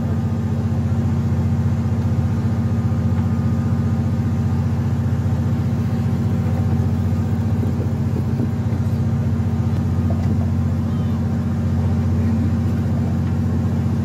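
Fishing boat's engine running steadily: a constant low drone that holds the same pitch throughout.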